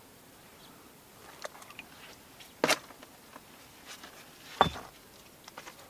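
Stones knocking as they are set down on a pile: a few scattered sharp knocks, the two loudest near the middle and about three-quarters of the way through, with small ticks between.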